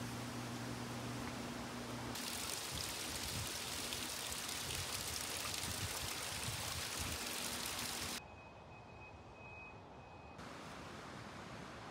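Ambient sound that changes abruptly at each cut. It starts with a low hum and faint hiss, then comes the loudest part, a steady rush of running mountain water for about six seconds. A quieter stretch follows, with a thin, steady high whistle lasting about a second and a half, and it ends in faint background hiss.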